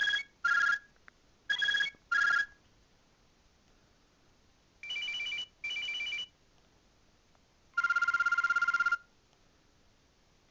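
Nokia 7200 mobile phone ringtones played through its speaker: a falling two-note electronic chime like a ding-dong, played twice in the first few seconds, then two longer beeps and a fast trilling ring of about a second near the end.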